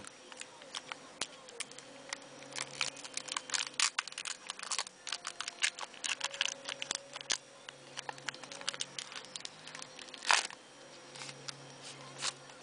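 Magic 2012 booster pack's shiny plastic wrapper crinkling and tearing as it is opened by hand, a long run of quick crackles with one louder crackle near the end.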